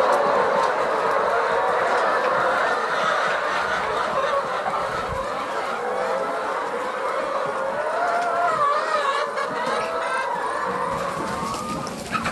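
A flock of laying hens clucking, with many calls overlapping in a steady chorus.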